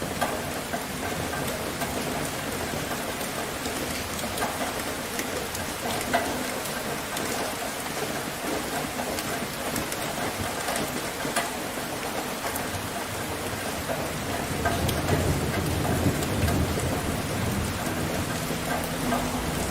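Steady rain falling on a surface, with individual drops ticking sharply here and there. A low rumble of thunder swells about three-quarters of the way through.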